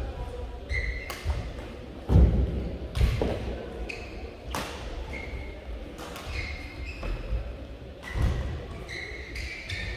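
Badminton rally: sharp cracks of rackets striking the shuttlecock, heavy thuds of footfalls and lunges on the court, and short squeaks of shoes on the court mat, with the loudest thud about two seconds in.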